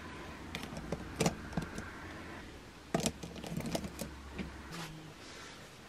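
Pens and pencils clicking and rattling against each other and their pot as a hand rummages through it: a scattered string of light, sharp clicks.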